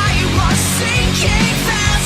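Background rock music with distorted guitar, loud and steady.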